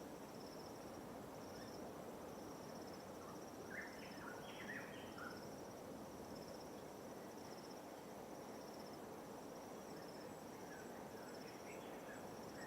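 High insect trills, each a short pulsed burst, repeating about once a second over a steady low wash of light waves. A few short bird chirps come about four to five seconds in.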